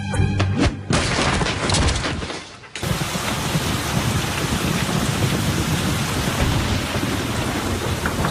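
Heavy, steady rain, with a low rumble underneath. It comes in abruptly about three seconds in, after a lighter hiss and the end of a music cue.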